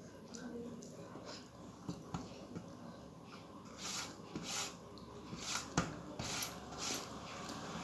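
A person eating close to the microphone: chewing and wet mouth sounds, a string of short bursts with a few sharp clicks, busiest in the second half.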